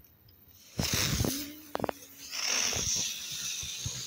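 Ground fireworks lighting and spraying sparks: a sudden loud hiss about a second in, a few sharp crackles, then a steady high fizzing hiss.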